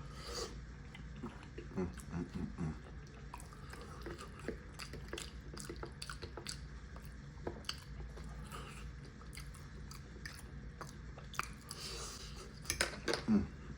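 Close-up chewing and wet mouth sounds of a person eating soft, saucy food (braised oxtail with rice), with scattered small clicks and smacks throughout. A short voiced sound comes near the end.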